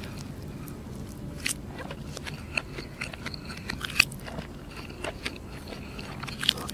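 Close-miked chewing of a mouthful of burger: irregular wet mouth clicks and soft crunches, the sharpest about four seconds in.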